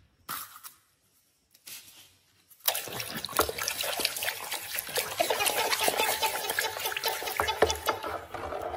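A hand sloshing and swishing plastic toy vehicles through a basin of water, splashing continuously from about a third of the way in.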